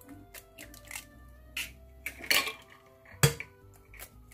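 Eggs cracked on the rim of a glass mixing bowl: a few sharp taps of shell on glass, the loudest about three seconds in, over soft background music.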